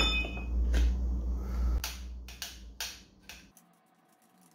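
A few sharp, irregular metallic clicks and clinks of tools and fork parts being handled, the first ringing briefly, over a low rumble that fades out after about two seconds.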